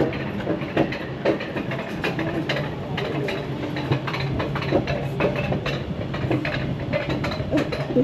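Alpine coaster sled running on its metal rail track while being hauled up the lift section: a steady low mechanical hum with a rapid, irregular clatter of clicks from the wheels and track.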